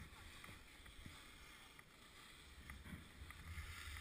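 Faint hiss of skis sliding over snow, with a low wind rumble on the microphone.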